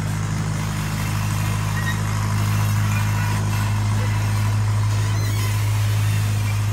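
Steady low drone of a miniature passenger train running along its track, heard from an open coach; it gets slightly louder about two seconds in.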